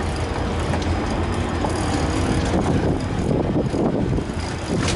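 Boat engine running at low speed with a steady low hum, under a rushing of wind and water.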